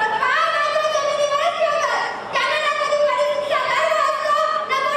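A high voice singing long, drawn-out phrases of about two seconds each, each sliding up into a held note.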